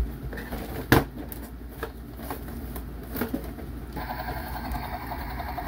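Handling of a toy playset's cardboard box and plastic parts: scattered light knocks and rustles, with one sharp click about a second in. A steady mechanical hum starts about four seconds in.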